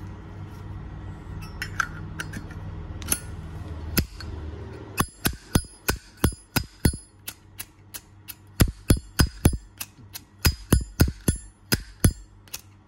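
Brass Zippo lighter being worked by hand: the lid clicked open and snapped shut and the flint wheel struck over and over, a rapid run of sharp metallic clinks from about five seconds in, after a few scattered clicks of handling.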